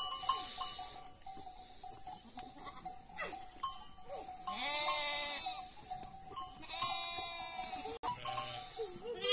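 Sheep bleating twice, each call under a second long and about two seconds apart.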